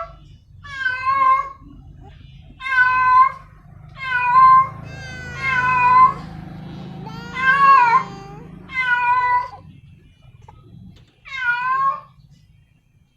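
A female domestic cat in heat calling for a mate: about eight loud, drawn-out meows with pauses between them, their pitch rising and falling. The calls in the middle are longer and wavering.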